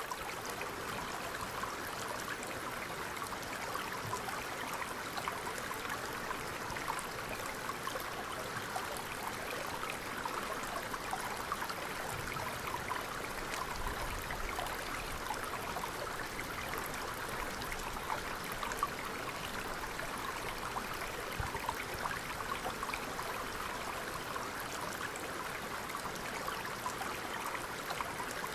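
Water running over river rapids, a steady, even rush that keeps on without pause.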